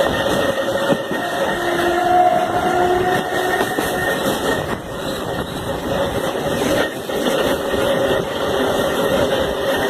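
Traction motors of a CPTM Série 4400 electric train growling under power, heard on board, with steady whining tones over rumbling wheel-on-rail noise.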